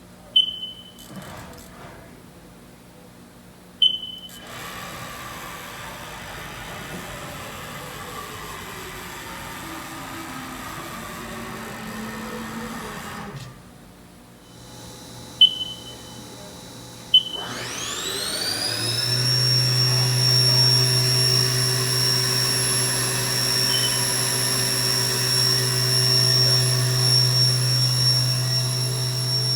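Haas VF-4B CNC vertical mill under power test: four short control-panel beeps, a stretch of motor whine gliding up and down in pitch, then the 7500 RPM spindle whining up to speed over about two seconds and running on steadily with a high whine over a low hum.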